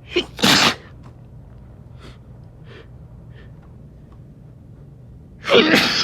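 A man sneezing loudly twice: a quick intake of breath and a sneeze just after the start, then a second sneeze about five seconds later.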